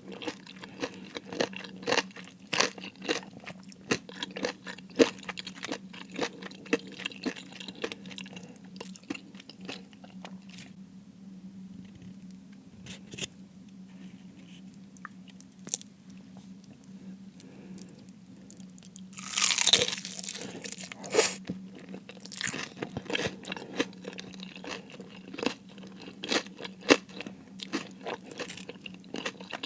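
Close-miked eating of crispy fried food: many sharp crunching bites and chewing, sparser in the middle, with one loud crunching bite about twenty seconds in. A faint steady low hum runs underneath.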